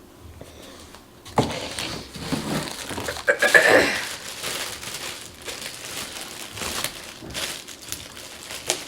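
Plastic packaging crinkling and rustling, with small clicks and knocks as parts of a multi-cooker are handled and unwrapped. It starts about a second and a half in and is loudest near the middle.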